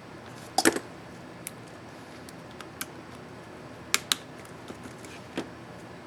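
Sharp plastic clicks and snaps from an ASUS X551C laptop keyboard's Shift keycap and its retainer as the key is handled and pressed. The loudest is a cluster about half a second in and a pair just before four seconds in, with a few lighter ticks between them.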